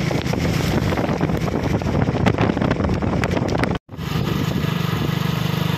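Motorcycle engine running steadily while riding, with wind rushing over the microphone. The sound drops out for an instant about two-thirds of the way through, then the engine hum carries on more evenly.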